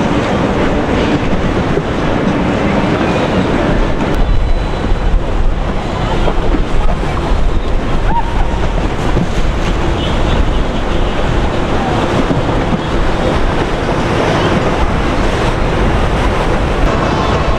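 Loud, steady rumbling rush of wind and water noise from a boat underway on the river, with no clear engine tone.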